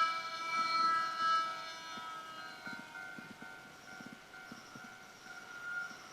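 Japanese railway level-crossing warning alarm sounding: electronic ringing tones that pulse for the first couple of seconds, then settle into a steadier held tone, with faint clicks underneath.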